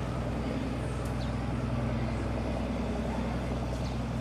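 Steady low drone of a large transport boat's engine as it cruises along the canal, an even hum with no change in pitch.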